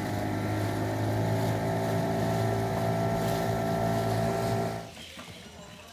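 A boat's engine running steadily at an even speed, cutting off suddenly about five seconds in.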